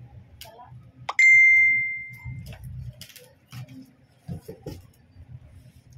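A single bright bell-like ding about a second in, one clear ringing tone that fades away over about a second. Around it, faint rustling and handling of cardboard and plastic packaging.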